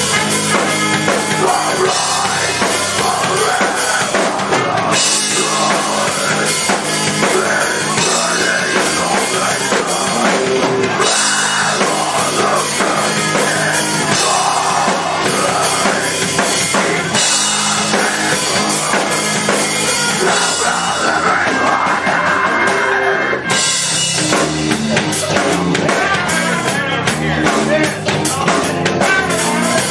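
Live rock band playing loudly: full drum kit with cymbals, electric bass, electric guitar and trumpet in a heavy rock groove.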